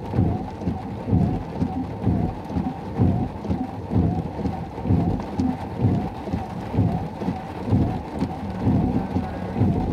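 Heavy rain drumming on the car roof, heard from inside the cabin: a dense, low, uneven rush that swells and eases.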